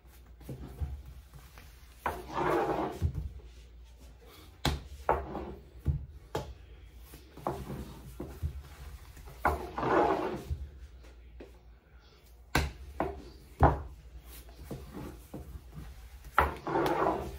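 Baklava dough being worked with a wooden rolling pin: sharp knocks scattered throughout, and three longer stretches of rolling and rubbing about two, ten and seventeen seconds in.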